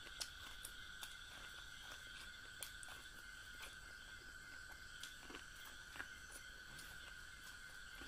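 Close-miked eating of corn on the cob: scattered soft clicks and smacks of teeth and lips working the kernels, the sharpest about a quarter second in and again at about six seconds, over a faint steady high-pitched hum.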